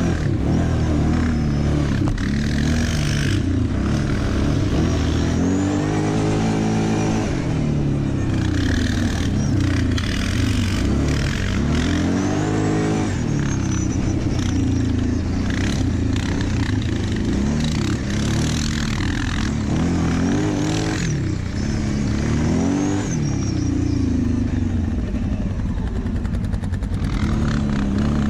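Quad (ATV) engine heard from the rider's seat, revving up and falling back again and again as the rider throttles on and off along a dirt trail, over a constant rush of noise.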